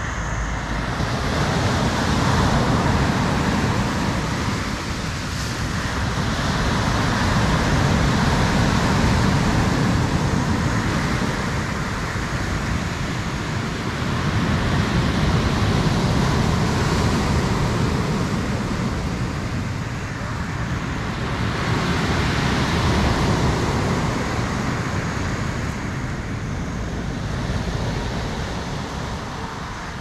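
Sea waves breaking and washing up a sand-and-pebble beach, the noise swelling and easing with each wave, about every six or seven seconds.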